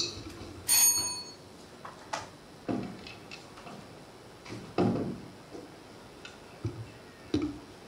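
Handling noise at a lectern microphone as one speaker gives way to the next: irregular knocks and bumps, with a brief high ring about a second in.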